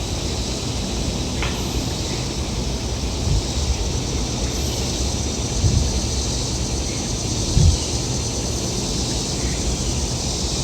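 Outdoor background: a steady high hiss over a low rumble, with a few faint short chirps and three soft low thumps, the last near the end.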